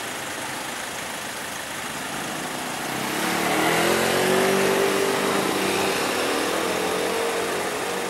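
Motor vehicle engine running close by, growing louder about three seconds in, with its pitch bending slightly, then easing off.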